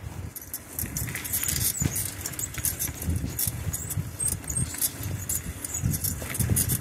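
A bicycle rattling and clicking as it rolls over a rough path, with an uneven low rumble of wind and tyres.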